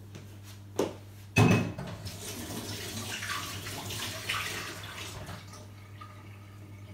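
A knock, then a louder clatter about a second and a half in, followed by a kitchen tap running for about four seconds before it stops.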